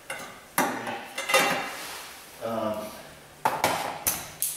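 Metal tools and parts clinking and clanking as they are handled: about half a dozen sharp metallic knocks with short ringing, grouped near the start and near the end with a quieter stretch in the middle.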